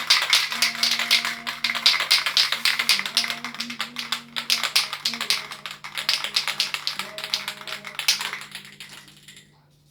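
Rapid, regular tapping, several light taps a second, as from a brush or sponge dabbing paint onto a wall; the tapping fades out about eight and a half seconds in.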